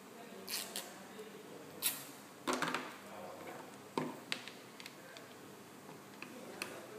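Scattered clicks and knocks from handling a mobile phone security display stand: a louder knock about two seconds in and a short cluster of clicks just after.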